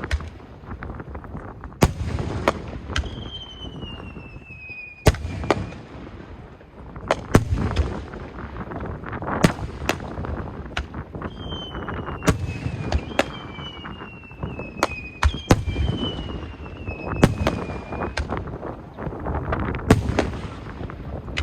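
Aerial fireworks shells bursting in a steady string of sharp bangs, about one every second or two, each followed by a rumbling echo. Several whistling shells sound between the bangs, each whistle falling slowly in pitch.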